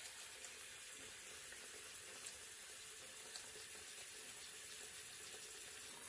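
Bathroom sink tap running, a faint steady hiss of water.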